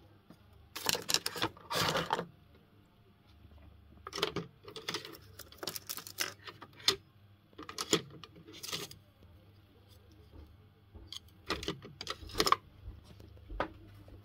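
Bursts of scratchy clicking and rattling, in short clusters about a second long, from painting tools being worked and handled, over a faint steady low hum.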